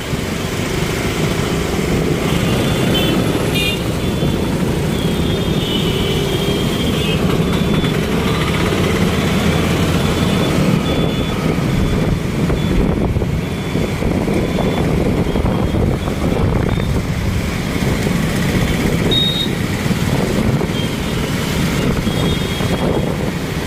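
Busy road traffic ridden through at close range: the steady running of many motorcycle and scooter engines with road noise, and now and then brief high beeps.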